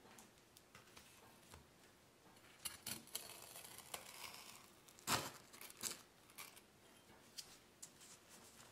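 A large kitchen knife cutting through crisp oven-baked cheese toast on a wooden cutting board: scattered crunches of the toasted crust, with the sharpest crunch about five seconds in.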